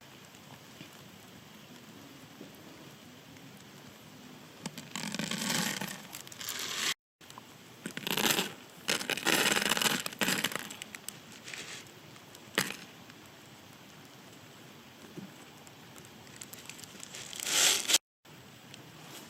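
Rustling and scraping in several bursts, the longest about five to seven and eight to eleven seconds in, with a short loud burst near the end.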